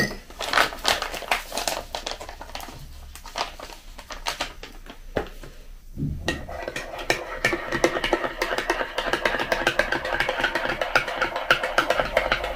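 Teaspoon clinking in a ceramic mug as chicory powder is stirred into milk: scattered taps at first, then from about six seconds a fast, continuous clinking with a faint ring from the mug.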